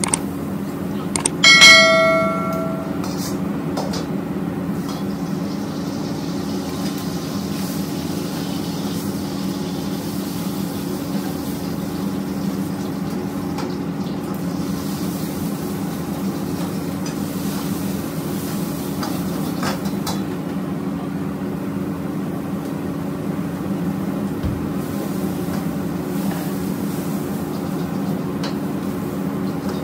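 Metal ladle striking a steel wok: one clang about two seconds in rings on like a bell for about a second, with a few lighter clinks later. Under it runs a steady low drone from the wok burners and kitchen extraction.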